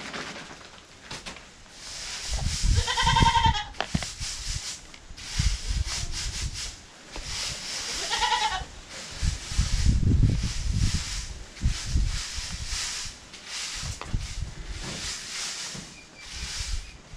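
A goat bleating twice, two short quavering calls about three seconds in and again about eight seconds in, with low rumbles on the microphone in between.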